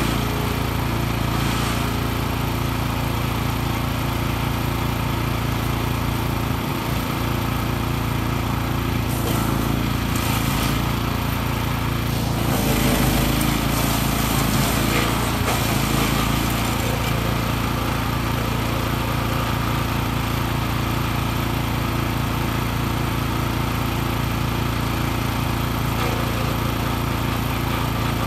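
Petrol engine of a 14 hp PRO-14HP wood chipper running steadily at working speed, with short spells of cracking as branches and brush are fed in and chipped.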